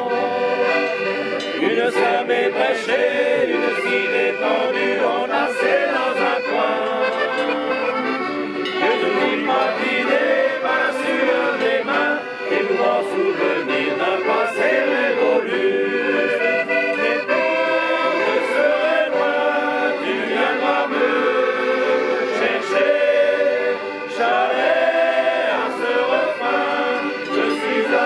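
A group of mixed voices singing a song together, accompanied by accordions. The singing runs in phrases with brief breaths between them.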